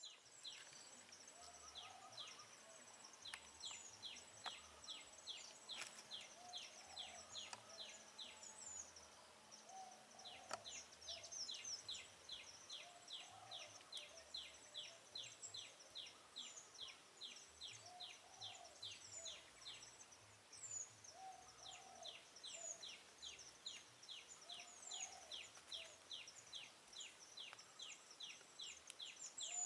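Faint wild birds calling: long runs of short, falling notes repeated about four or five times a second, thin high chirps, and a low call every few seconds.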